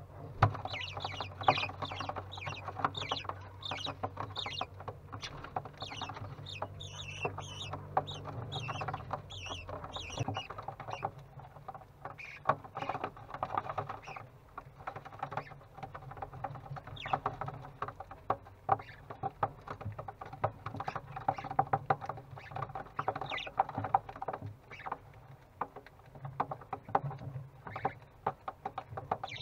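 Budgerigar chicks chirping and chattering in short calls, with scratching and shuffling, over a low steady hum that fades about ten seconds in.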